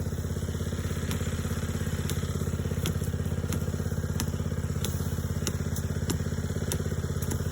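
A small engine idling steadily with an even, fast pulse, and faint sharp ticks now and then.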